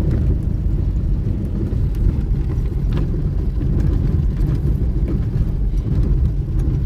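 Steady low rumble of a car driving, heard from inside: engine and road noise with a few faint clicks and knocks.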